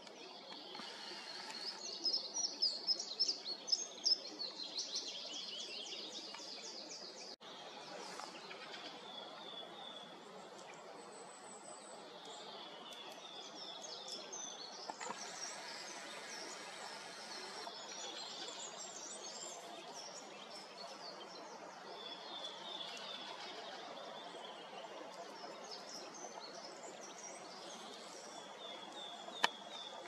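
Small songbirds singing in the forest: one loud song of quick notes falling in pitch in the first few seconds, then shorter high phrases repeated now and then, over a steady background hiss.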